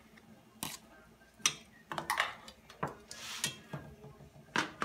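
Kitchen utensils knocking and clinking against a skillet and dishes: several separate sharp knocks, with a brief hiss about three seconds in.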